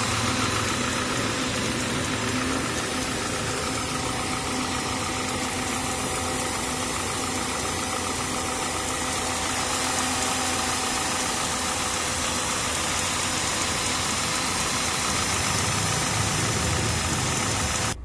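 Peugeot 206 engine idling steadily and evenly, running normally with its repaired ECU.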